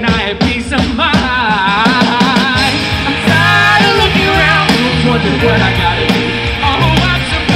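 Live rock band playing loudly, with guitars, bass guitar and drum kit.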